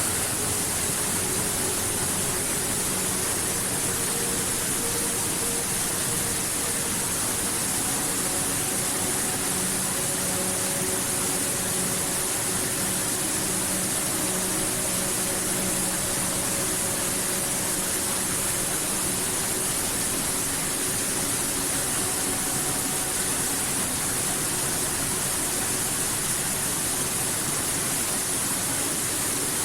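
Steady rushing water, an even hiss with no breaks or changes, like a waterfall or fast stream.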